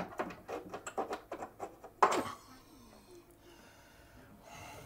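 Quick clicks and taps of hands working at the screws and top edge of a wall-mounted microwave, with one loud knock about two seconds in, then quieter.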